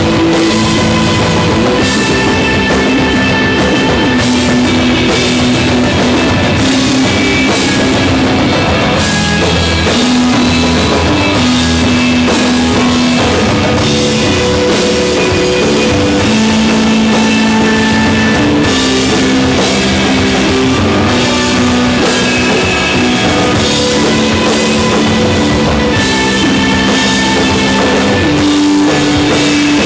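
A rock band playing live stoner-rock music: electric guitar and bass over a full drum kit, loud and dense, with held notes shifting every second or two and steady drum and cymbal hits. The piece is instrumental, with no singing.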